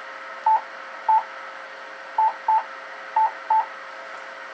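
Six short beeps of one steady pitch, a pair about a second in, then two quick pairs, from a transceiver's Morse (CW) keying sidetone as it drives a Ten-Tec Titan II 416 linear amplifier. Under them runs the steady whir of the amplifier's cooling blower.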